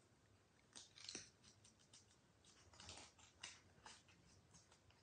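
Faint, scattered crackles of thick green paper rustling and crinkling as it is folded and shaped by hand.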